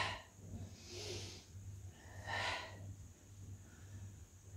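A woman's forceful exhalations through the mouth during weighted abdominal crunches, about three short breaths spaced a second or so apart, each puffed out on the effort of a lift.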